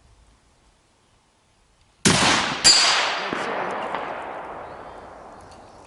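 A single long-range rifle shot: a sharp crack, a second sharp crack just over half a second later, then a long rolling echo that fades over about three seconds.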